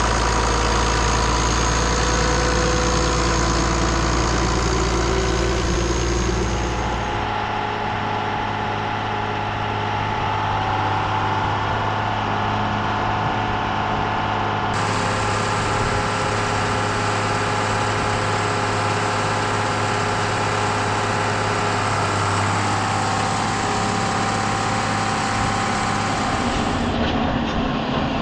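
Farm tractor engines running steadily under field work, heard across several shots: the engine note changes abruptly about seven seconds in, again around the middle, and near the end.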